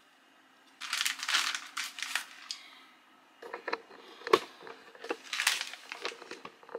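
A clear plastic zip-top bag crinkling and rustling as it is handled and opened, in two spells of crinkling with a few sharp clicks.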